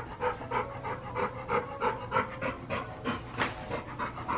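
Large blue-nose pit bull panting with his mouth open, a steady rhythm of about three pants a second.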